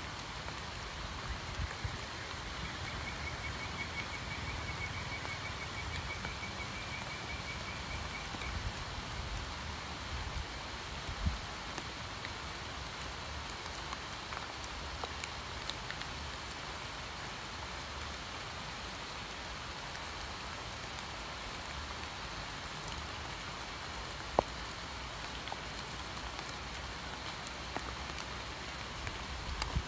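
Steady rain falling onto a flooded pond and the leaves around it, with an occasional single drop ticking close by.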